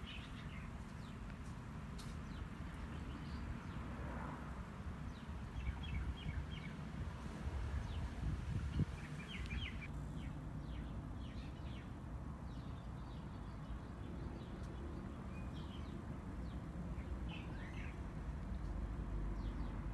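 Outdoor ambience: scattered short bird chirps over a steady low rumble.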